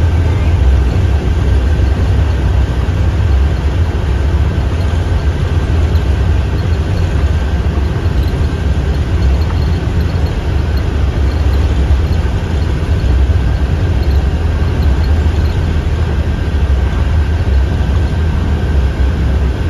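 Inside a 2017 IC CE school bus on the move: a steady low engine drone under even road and tyre noise, with a faint steady high whine.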